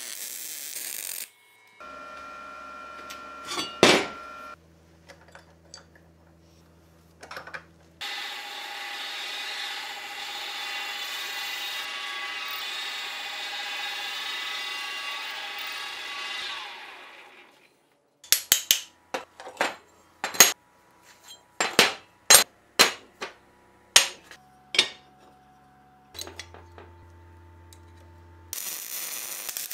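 A second of MIG welding crackle at the start, then a drill press running for about nine seconds as it bores a steel plate clamped in a vise, followed by a string of about a dozen sharp knocks.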